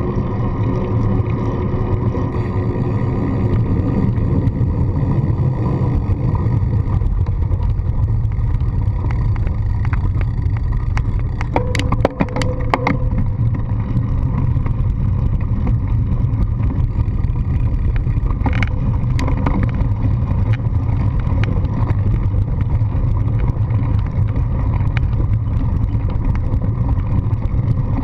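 Steady low rumble of wind on the microphone and tyres rolling over the ground, heard from a GoPro on a bicycle's handlebar while riding. A cluster of sharp clicks and knocks comes about halfway through, and a single knock a few seconds later.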